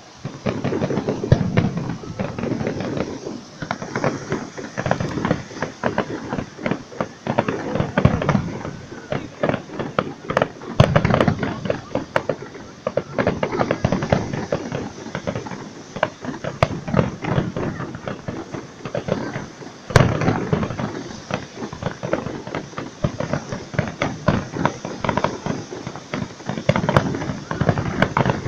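Fireworks display: a dense, continuous barrage of bangs and crackling shell bursts that breaks in suddenly at the start, with one especially sharp crack about twenty seconds in.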